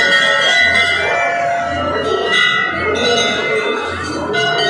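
Hindu temple bells ringing, struck again and again so that their ringing overlaps, over a crowd of voices.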